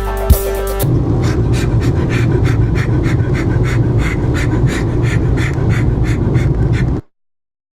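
Music stops about a second in and gives way to rapid, rhythmic heavy panting, about four breaths a second, over a low steady hum. The panting cuts off suddenly near the end into silence.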